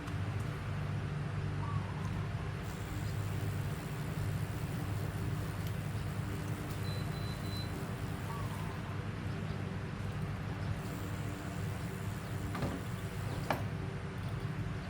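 A steady low mechanical hum, with a few faint short chirps and clicks over it.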